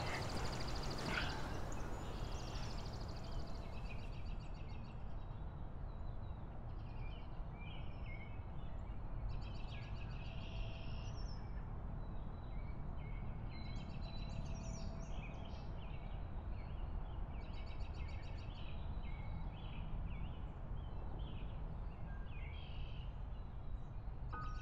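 Evening outdoor ambience: a steady low rumble, with small birds chirping and trilling in short, repeated bursts.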